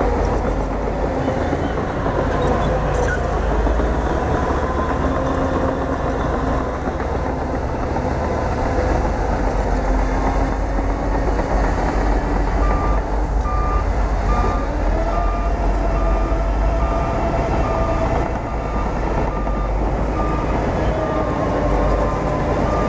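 Bulldozer's diesel engine running steadily with a heavy low rumble, its pitch drifting up and down a little. About halfway through a reversing alarm starts beeping evenly, roughly twice a second.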